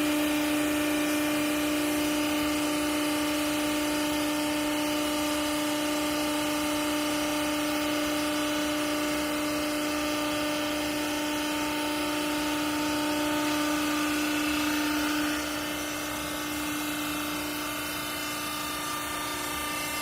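Scrap clothes press baler running, its hydraulic pump and motor giving a steady loud hum. About fifteen seconds in the humming tone stops and a quieter machine noise carries on.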